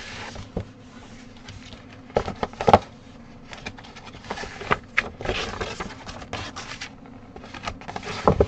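Rustling and crinkling of paper and fabric as a bead-embroidery kit's contents are pulled out of an envelope and laid down, with irregular light taps and crackles, the sharpest about three seconds in and near the end.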